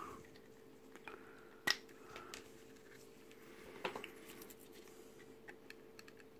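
Plastic parts of a 1/16 scale BMW Isetta model kit being handled and pressed together: small clicks and taps, with a sharp click about a second and a half in and another near four seconds. A faint steady hum runs underneath.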